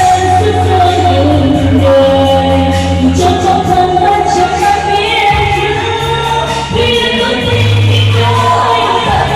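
Music: a song with singing voices over instrumental backing with held bass notes.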